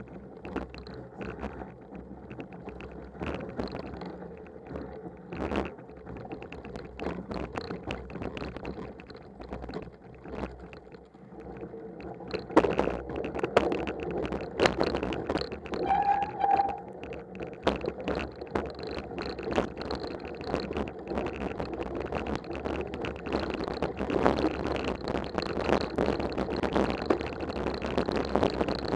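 Mountain bike riding along a snowy trail: tyres rolling through snow with a constant rattle of small knocks and clatters over bumps, growing louder about halfway through. A brief squeak sounds around the middle.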